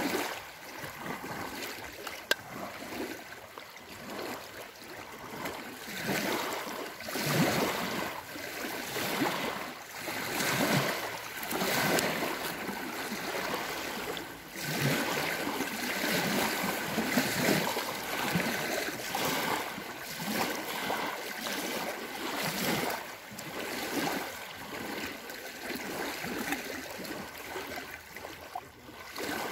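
Small waves lapping and breaking on a sandy lake shore, washing in and out in uneven surges every second or two.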